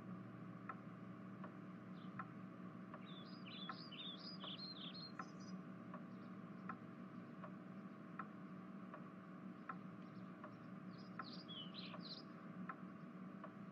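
Faint small birds chirping in two short bouts, over a steady low hum and a soft tick that repeats about every three-quarters of a second.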